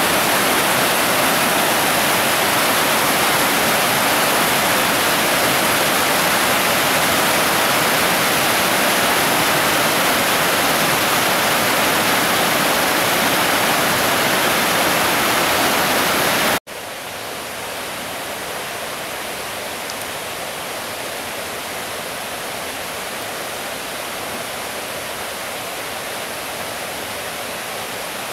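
Water rushing over a stone river weir and through rocky rapids, a steady loud rush. About two-thirds of the way through it cuts off abruptly and a quieter, steady rush of river water follows.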